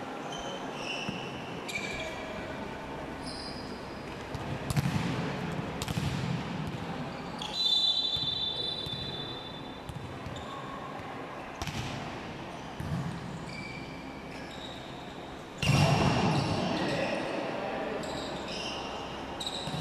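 Indoor volleyball play in a big echoing hall: sharp ball strikes, sneakers squeaking on the court and players shouting. A referee's whistle sounds about eight seconds in, and a loud hit with shouting comes near the end.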